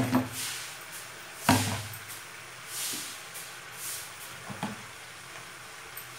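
Two sharp knocks about a second and a half apart, like a door or cupboard or a hard object being set down in the kitchen, with fainter rustling and scraping noises between them.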